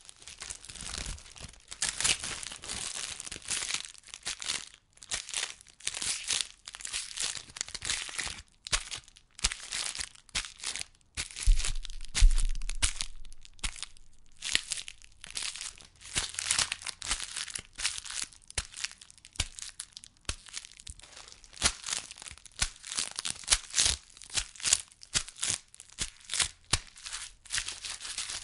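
Brown parcel tape being smacked and scrunched: bursts of sticky crinkling and crackling with short pauses between them, and a heavier low thump about twelve seconds in.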